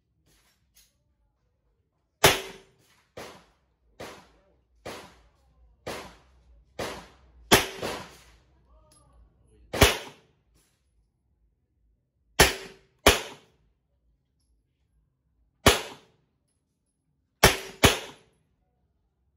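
Ruger SR9 9mm pistol fired in single shots at an uneven pace, about thirteen in all, with a quick pair near the end. A run of fainter shots comes between the first few loud ones.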